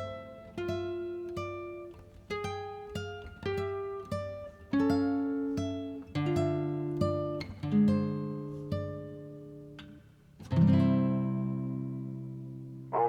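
Background music: an acoustic guitar picking single notes and chords, each note ringing out and fading, ending on a long held chord.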